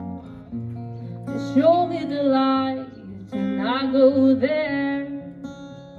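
A woman singing to her own strummed acoustic guitar: two sung phrases over held guitar chords.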